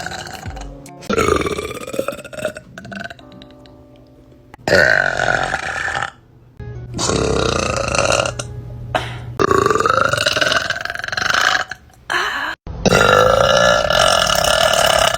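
Girls burping loudly, one long burp after another: about five drawn-out burps, each lasting a second or more, with short gaps between them. Faint background music is heard in a gap about a third of the way in.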